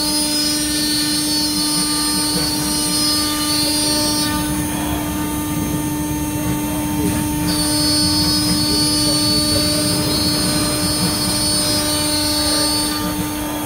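CNC router spindle running at a steady speed with a constant whine while its bit cuts through an MDF plate. A higher-pitched whine comes in twice, for several seconds each time.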